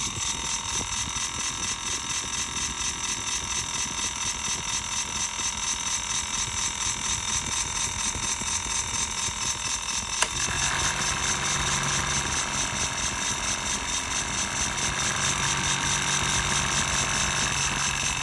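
A small rainbow-coloured electric fan running with a steady whir and a fast, even flutter. A click about ten seconds in is followed by a slightly louder run with an added low hum.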